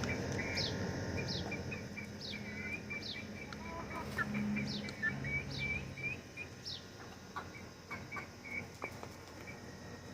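Chickens peeping and chirping: a high, quickly falling peep repeated about every two-thirds of a second, with shorter chirps beneath it, thinning out after about seven seconds. A low hum runs underneath and stops about six seconds in.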